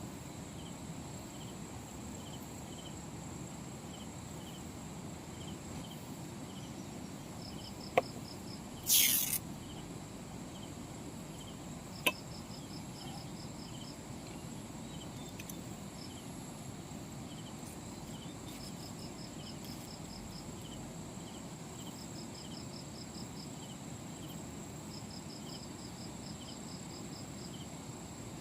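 Insects chirping in short repeated trains over a steady high whine and low background noise. About eight seconds in there is a sharp click, followed at once by a short loud hiss, and another click a few seconds later.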